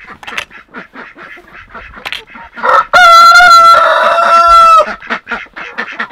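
Rooster crowing once, very loud and close, for about two seconds starting about three seconds in. Around it, a flock of Barred Rock hens clucks and ducks quack in short calls.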